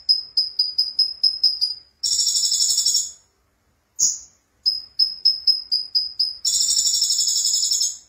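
Brown-throated sunbird (konin) singing the same phrase twice. Each phrase is a single high note, then a run of about eight quick high chips, then a buzzy high trill about a second long.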